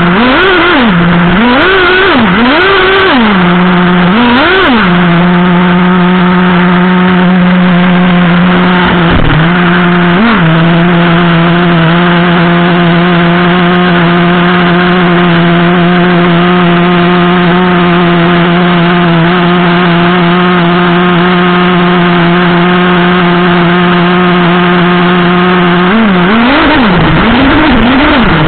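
Traxxas Revo 3.3 nitro RC truck's two-stroke glow engine, heard close from a camera mounted on the truck: a few short revs, then a steady idle for about twenty seconds with one quick blip of the throttle, then revving again near the end.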